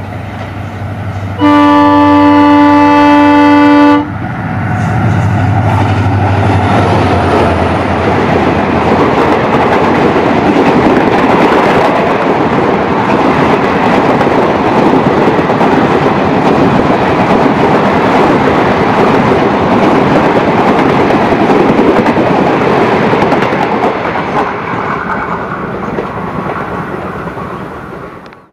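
A WDG 4 diesel locomotive sounds its multi-tone horn for about two and a half seconds, cut off sharply. The locomotive's engine, then the coaches of a long express, pass close by with a loud steady rumble and clatter of wheels on rails that fades near the end.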